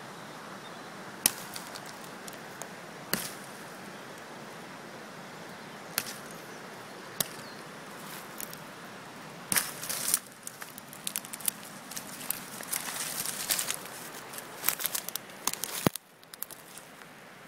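Bark River Lil Canadian fixed-blade knife cutting into a thin tree branch: single sharp cracks every second or two, then a rapid flurry of crackling cuts and snaps from about ten seconds in, ending with one loud crack. A steady hiss runs underneath.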